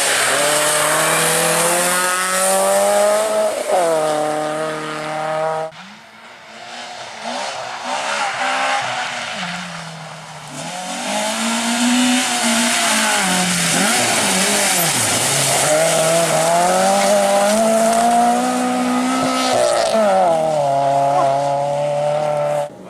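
Rally car engines revving hard. The first car's revs climb steeply until a sudden cut about six seconds in. Then a Citroën Saxo rally car's engine revs rise and fall unevenly as it slides off the track and spins its wheels in mud.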